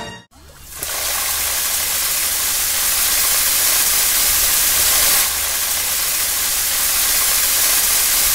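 A steady, loud rushing hiss, dropping slightly in level about five seconds in.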